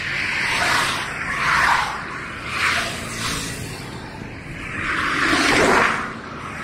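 Road traffic passing close by, vehicles going by one after another in rising and falling whooshes of tyre and engine noise. The longest and loudest pass comes about five to six seconds in.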